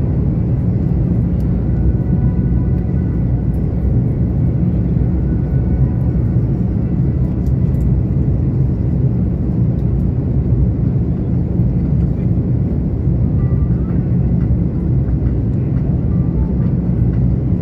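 Airbus A330-200 cabin noise during the climb after takeoff: the General Electric CF6-80E1 turbofans at climb power and the airflow over the fuselage make a steady, deep rumble with a faint whine in it, heard inside the cabin behind the wing.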